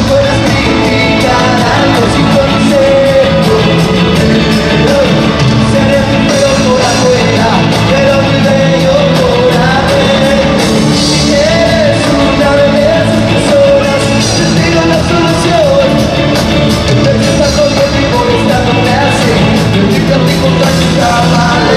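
A live rock band plays with electric guitars and a male lead voice singing, recorded from the crowd at an arena concert.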